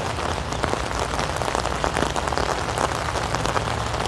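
Steady rain falling on an umbrella held overhead: a dense, irregular patter of small drop hits.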